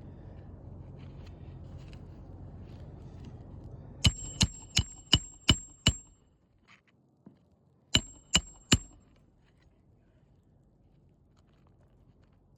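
Hammer driving a roofing nail into an asphalt shingle: six quick ringing strikes, a pause of about two seconds, then three more.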